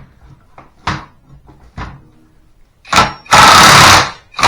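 A few light knocks, then about three seconds in a Hercules 20V brushless half-inch impact wrench fires: a short blip, then nearly a second of loud hammering under load on a nut. It starts hammering again right at the end.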